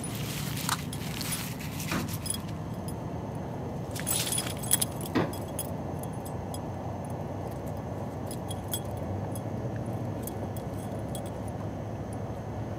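A cat's collar tags tinkling as it walks and sniffs about, in jingling clusters over the first couple of seconds and again at about four to five seconds, then a few scattered clinks. A steady low rumble runs underneath.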